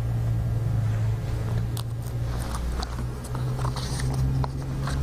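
Light rustles and small clicks of a sheet of paper being handled, over a steady low hum.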